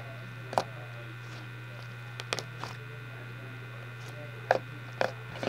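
Glitter slime being pressed and swirled by hand, giving about eight short, sharp pops and clicks at uneven intervals, over a steady electrical hum.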